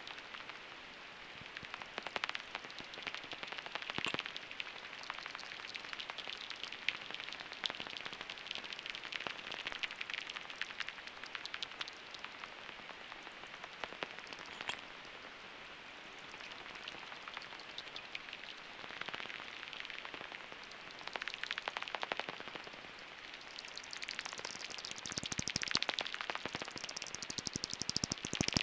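Echolocation calls of pipistrelle bats made audible by a heterodyne bat detector tuned to 44 kHz. They come as rapid, irregular dry clicks over a steady hiss, thickening in waves into a dense crackle near the end.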